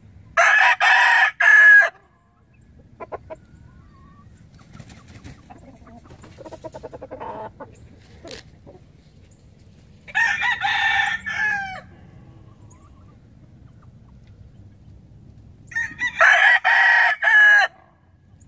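Boston Roundhead gamecock crowing three times, each crow under two seconds long, with softer clucking between the first and second crow.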